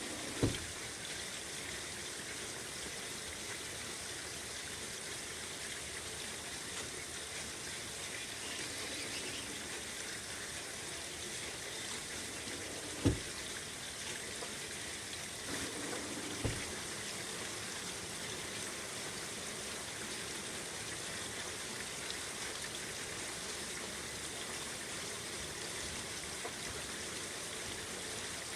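Steady rain falling. Three short thumps break through it, one near the start, one about halfway through and one a few seconds after that: a screen door being opened.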